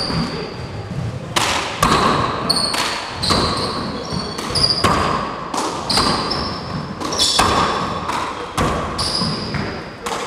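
Handball rally in an enclosed four-wall court: the rubber ball is struck by gloved hands and smacks off the walls and floor roughly once a second, each hit echoing off the walls. Short high squeaks of sneakers on the hardwood floor fall between the hits.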